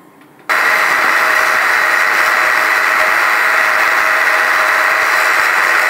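Angle grinder with a cut-off disc cutting steel: a loud, steady high whine that comes in abruptly about half a second in and holds without a break.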